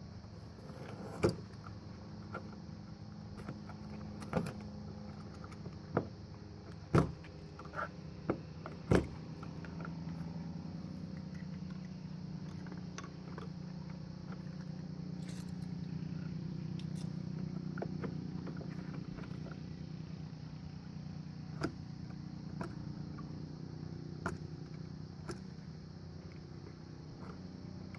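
Scattered sharp clicks and metallic knocks, like small parts and tools being handled, over a steady low engine-like hum that swells in the middle and eases off.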